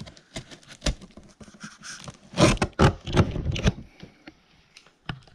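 Scraping, tapping and knocking on a cardboard shipping box, with a burst of louder knocks in the middle.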